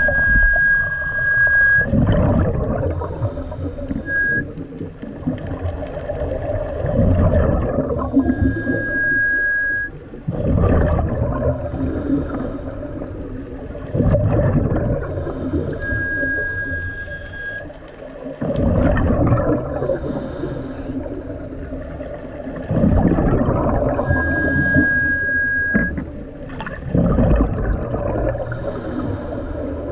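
Scuba diver breathing through a regulator underwater: a steady whistling tone lasting about two seconds on each inhalation, roughly every eight seconds, each followed by the rushing, rumbling burst of exhaled bubbles.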